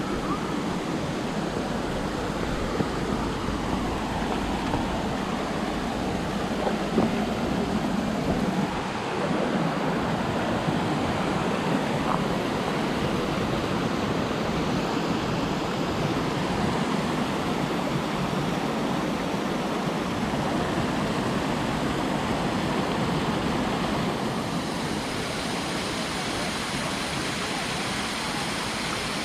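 Steady rush of falling water from the Suuçtu waterfall, a cascade about 38 metres high.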